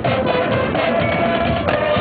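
Marching band playing: brass holding steady chords over drums and percussion.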